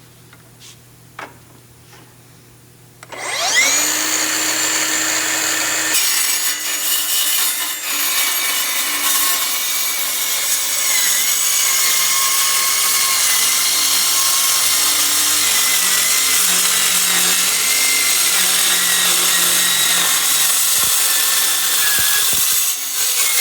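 Milwaukee M18 Fuel 8-inch cordless metal-cutting circular saw spinning up with a rising whine about three seconds in, then cutting through steel about 3/16 inch thick in one long steady cut that stops near the end.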